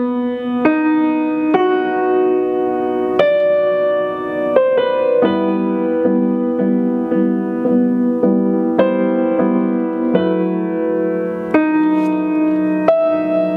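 Steinway Model S baby grand piano being played: slow chords struck one after another, each ringing on until the next.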